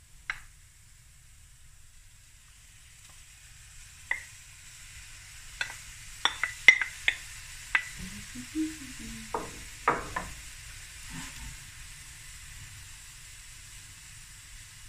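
Fried rice and fish sizzling faintly in a stainless steel pan, the hiss slowly growing, with a run of sharp clicks and knocks from a wooden spoon and a ceramic bowl against the pan as fish pieces are laid on, most of them between about four and ten seconds in.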